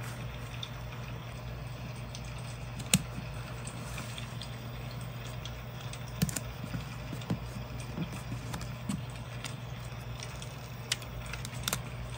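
Paper pieces handled and pressed onto a journal page: light taps, paper rustles and small clicks over a steady low hum, with one sharp tap about three seconds in.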